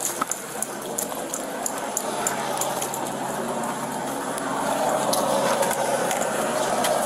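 Rustling with many small sharp clicks and rattles, the movement and gear noise of a dog handler and his dog moving on foot. A rushing noise grows louder about two-thirds of the way through.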